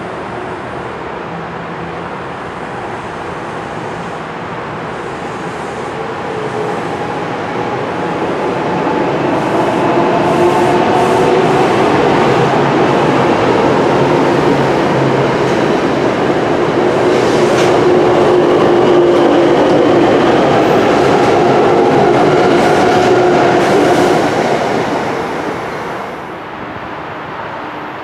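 NJ Transit Arrow III electric multiple-unit train passing along the platform: wheels rumbling on the rails with a wavering motor whine. It builds over several seconds, stays loud for about fifteen seconds as the cars go by with sharp wheel clicks, then dies away near the end.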